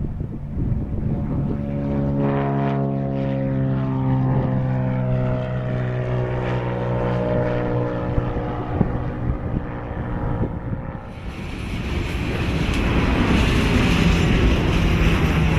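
Propeller airplane passing by, its drone carrying a clear propeller tone that falls steadily in pitch as it goes past. About eleven seconds in, a louder, even rushing noise builds and takes over.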